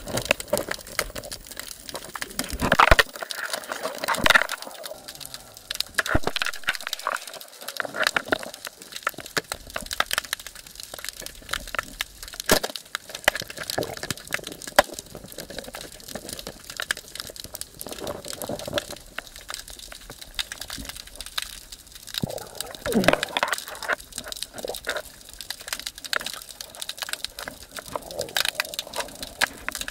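Continuous underwater crackling and clicking heard through a submerged camera, with louder gurgling swishes about three seconds in and again past the middle.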